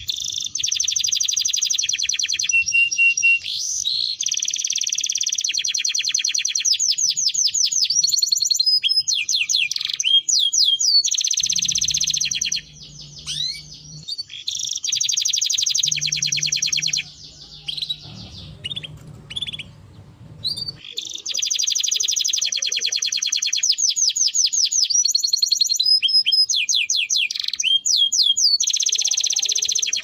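Domestic canary singing: long runs of rapid trilled notes and sliding whistles, broken by a few short pauses.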